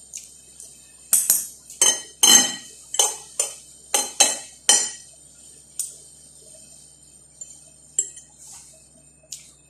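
Cutlery clinking against a plate: a quick run of about nine sharp strikes between one and five seconds in, then a few scattered lighter clinks.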